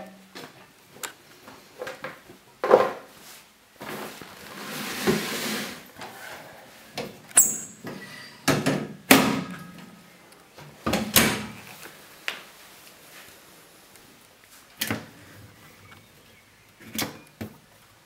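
Laundry being pulled out of the drum of an Eudora Luftikus front-loading washer-dryer into a plastic basket: fabric rustling, with a longer rustle about four seconds in, and a string of sharp knocks and clicks as the round porthole door is handled.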